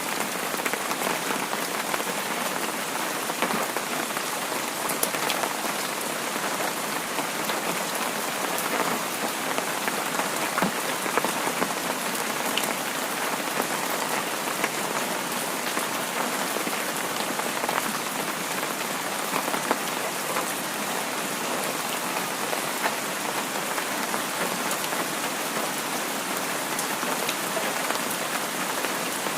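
Heavy rain falling steadily, a dense even patter with many small individual drop ticks.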